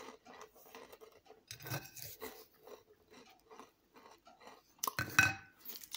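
A crunchy chocolate-filled sandwich biscuit being chewed close up: a run of small crisp crunches, with a louder bite about five seconds in.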